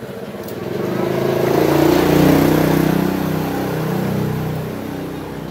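A motor vehicle passing close by: its engine grows louder to a peak about two seconds in, then fades away.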